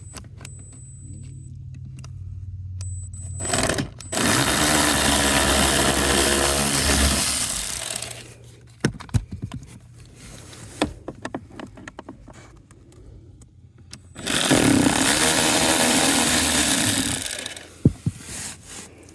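Cordless power tool with an 8 mm socket running twice, for about four seconds and then about three, as it backs out the blower motor's mounting screws. Light clicks and knocks of handling come between the runs.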